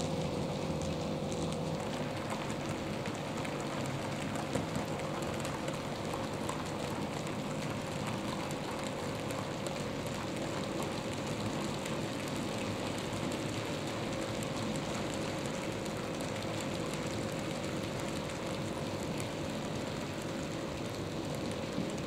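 00-gauge model goods trains running on the layout's track: a steady rattling clatter of small wheels on the rails, under a steady hum.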